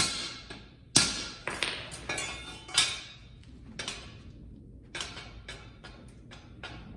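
A hammer striking the steel fireplace grate to bend its bent legs straight. Several hard, ringing blows come about a second apart, followed by lighter, fainter taps after about three seconds.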